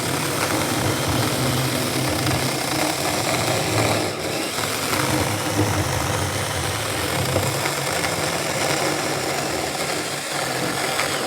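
Saker battery-powered mini electric chainsaw cutting steadily through a knot in dry maple, the motor running under load and the chain chewing through the wood.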